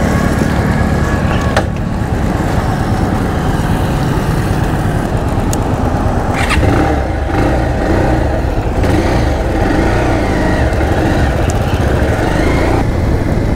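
A 220 cc motorcycle engine idling steadily, with street traffic noise around it.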